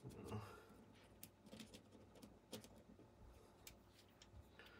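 Near silence, with faint scattered light ticks and clicks from small AR-15 bolt carrier parts and a cleaning tool being handled.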